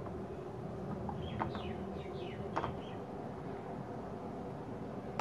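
Plastic spatula clicking and scraping against a nonstick frying pan while thick potato dough is stirred and pressed, a few sharp taps. A small bird chirps several short falling notes in the background about a second in.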